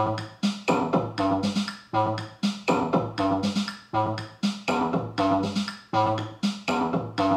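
Sampled electronic drum beat from a Pocket Operator PO-32 tonic, played back as a looped sequence on a 1010music blackbox sampler: punchy drum-machine hits with pitched synth tones and a falling pitch sweep, the pattern coming round about every two seconds.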